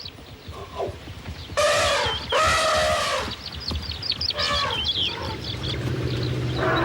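Elephant trumpeting: two loud blasts close together about a second and a half in, then a shorter one a little later. High chirping calls come over the top in the middle.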